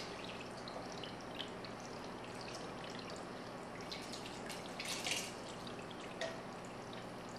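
Canned diced tomatoes and their juice dripping and plopping from tilted cans into a stockpot, with a brief louder plop about five seconds in.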